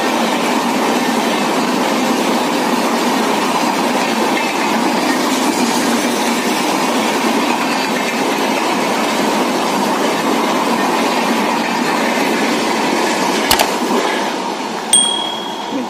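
Express train's passenger coaches running past at speed: a steady rumble and clatter of wheels on the rails that eases off as the last coach goes by near the end. A sharp click and a short high ding sound near the end.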